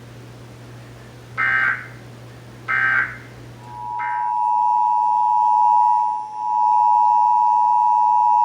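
Emergency Alert System tones: three short warbling data bursts about a second apart, the SAME end-of-message code that closes a test, the last overlapping the start of the EAS two-tone attention signal (853 and 960 Hz), which then sounds loud and steady with a brief dip partway through.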